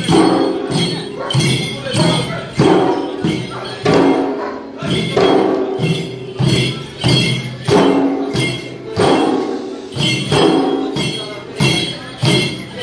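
Limbu chyabrung drums beaten in a steady dance rhythm, a little under two strokes a second, with metallic clinking over the beats.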